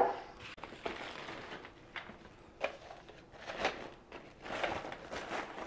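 Plastic bag crinkling in short, scattered rustles as a car stereo head unit is lifted out of its foam packaging.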